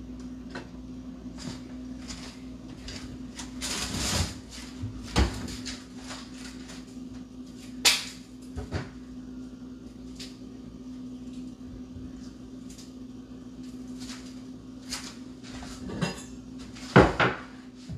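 Kitchen handling noises: scattered knocks and clicks of dishes and kitchen items being set down and moved on a counter, with a sharp click about eight seconds in and a cluster of loud knocks near the end, over a steady low hum.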